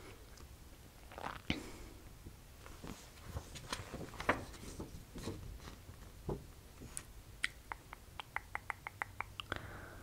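Scattered soft clicks close to the microphone, then a quick, even run of ticks, about six a second, near the end: a computer mouse's scroll wheel being turned while searching.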